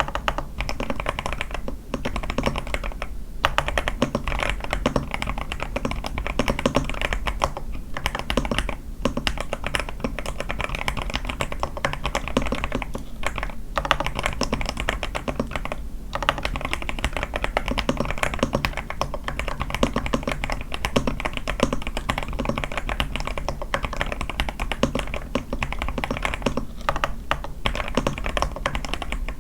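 A81 mechanical keyboard with lubed Sky switches, a tape mod and lubed stabilizers being typed on fast and continuously, a steady stream of key clacks with a few brief pauses.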